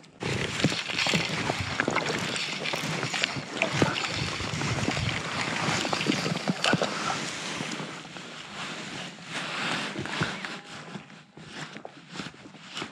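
Water sloshing and splashing close to the microphone around a float tube, loudest over the first eight seconds, then lighter and more broken.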